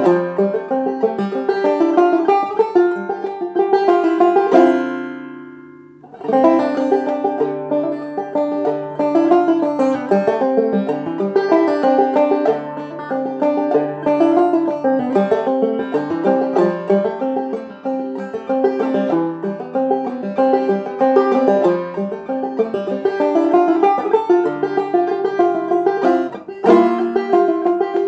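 Five-string banjo played clawhammer style: a melodic tune of quick plucked notes. About four and a half seconds in, a chord is left ringing and fades away, then the picking resumes.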